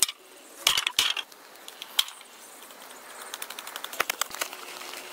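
A wooden stick knocking sharply into dry ground several times, then a run of quicker, lighter taps as it chops out a hole in sandy soil.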